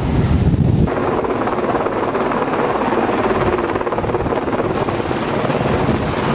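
Helicopter running steadily with a fast rotor chop. It is the kind used for long-line logging lifts. The opening second is a heavy low rumble of wind on the microphone that cuts off suddenly.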